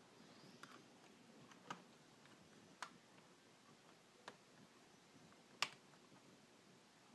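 Near silence broken by five short, sharp clicks at uneven intervals of roughly a second or so; the last, a bit over five seconds in, is the loudest.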